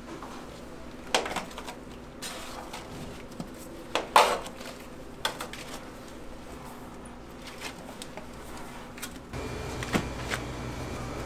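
Kitchen clatter of pans and metal utensils during pastry-making: a few sharp knocks and clinks, the loudest about four seconds in. A low steady hum comes in near the end.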